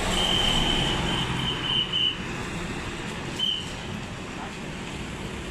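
Road traffic with a bus engine running, and a thin, high, steady tone that sounds in short pieces for the first two seconds and once more, briefly, at about three and a half seconds.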